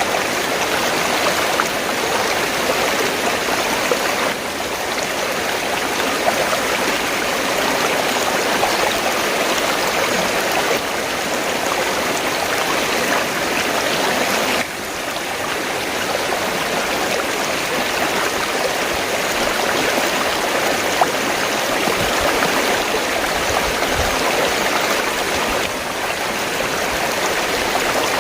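River water flowing, a steady even wash of noise, briefly dipping in level about halfway through.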